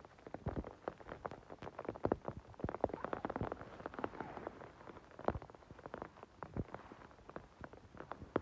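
Irregular crackling and rustling of forest moss and grass as a gloved hand parts the vegetation and plucks small mushrooms, mixed with steps on the forest floor.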